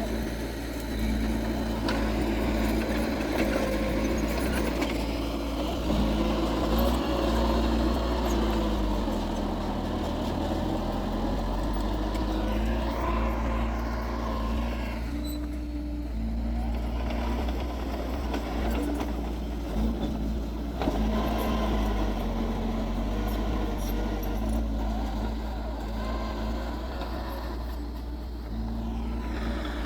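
Heavy diesel engines of earthmoving machines (a bulldozer and dump trucks) running steadily, their pitch rising and falling now and then as the load changes.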